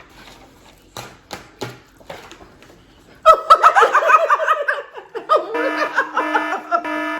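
A few soft clicks, then women bursting into loud laughter about three seconds in, in quick repeated peals that run on.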